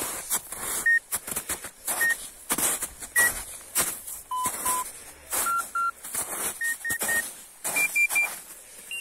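Arva Evo 5 avalanche transceiver beeping in search mode: short single beeps about a second apart, then pairs and triples that come faster and rise in pitch toward the end as the searcher closes to within a metre or two of the buried transmitter. Repeated crunching footsteps in snow sound between the beeps.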